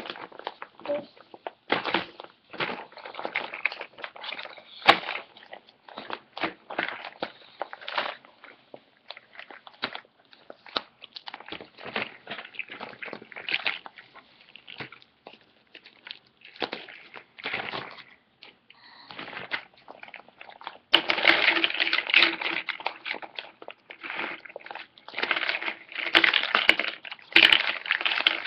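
A clear plastic bag crinkling and large plastic building blocks clacking against each other and the table as blocks are taken out one by one. About 21 seconds in it becomes a dense, continuous crinkle and rattle as the bag is shaken and the blocks are tipped out.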